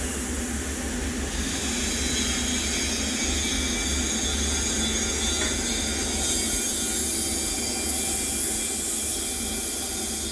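TIG welding arc running steadily on a steel pipe-to-flange root pass: an even hiss over a low electrical hum.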